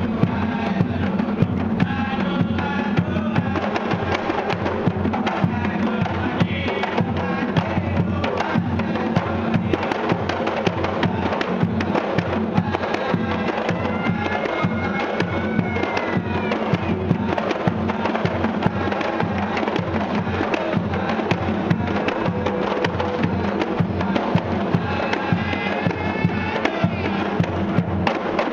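A kompang troupe playing Malay kompang frame drums with bare hands, a dense, fast interlocking rhythm of strikes that runs on without a break. Men's voices sing along over the drumming.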